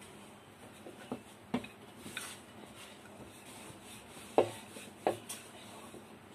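Rolling pin rolling dough out thin on a board: a soft rubbing with a few short knocks of the pin on the board, the loudest two about four and five seconds in.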